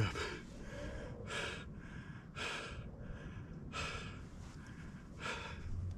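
A man breathing heavily, with four or five loud sighs or sniffs a second or so apart, shaken up with emotion.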